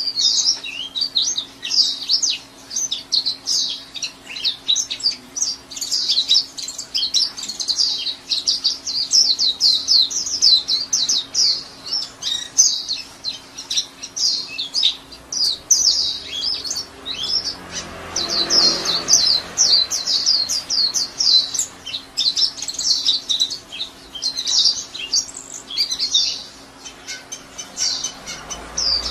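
White-eye (pleci) singing a long, rapid, high chattering 'ngekek' song, the trills packed almost without a break, over a faint steady hum. A brief rushing noise swells and fades about two-thirds of the way through.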